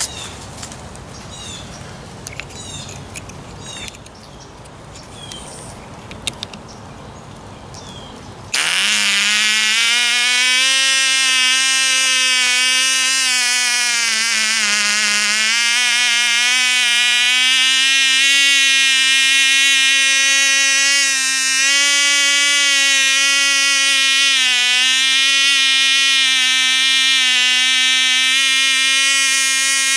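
Cox .049 glow engine with a 5x4 prop: after several seconds of light clicks it starts about eight seconds in, then runs at a loud, steady, high-pitched buzz. Its pitch sags briefly twice.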